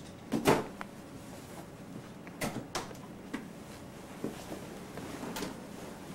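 A handful of scattered knocks and rustles from a person moving about a small room and handling things, the loudest about half a second in.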